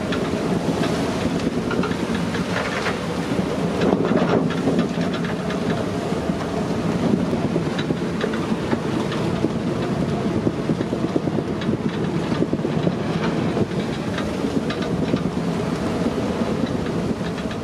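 Wind buffeting the microphone and water rushing past the hull of a sailing yacht under way in rough seas and about 20 knots of wind, with scattered knocks and rattles from the boat.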